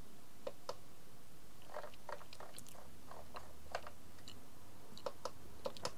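Small irregular clicks of the RadioMaster Boxer Crush transmitter's buttons being pressed while paging through its menus, a dozen or so soft clicks spread unevenly over a few seconds.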